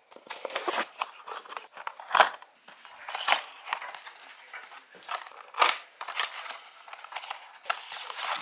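Packaging being handled during an unboxing: irregular crinkling and rustling of wrapping, with a few louder scrapes about two, three and five and a half seconds in.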